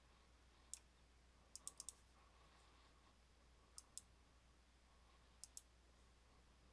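Computer mouse button clicking: a single click, then a quick run of four, then two pairs of clicks, over near-silent room tone.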